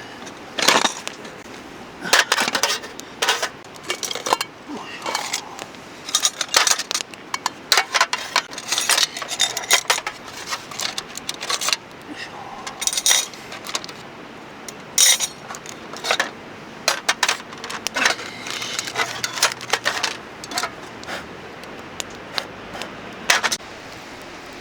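Light metal camping gear being handled: irregular clinks and clatters of metal pieces knocking together, several times a second in clusters.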